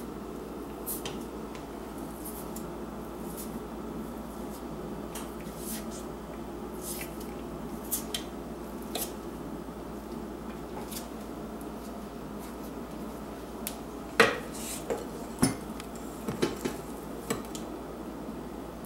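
Light clicks and scrapes of a wooden spatula packing cookie dough into the tube of a cookie press, then a cluster of louder clinks and knocks near the end as the spatula scoops dough against a stainless steel mixing bowl.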